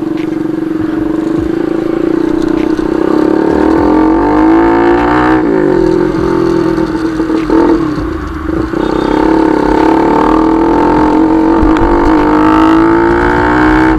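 Bajaj Pulsar NS200 single-cylinder engine through a replica SC Project full-system exhaust, loud, pulling up through the revs under way. The pitch falls away about five seconds in and again around eight seconds in, then climbs again.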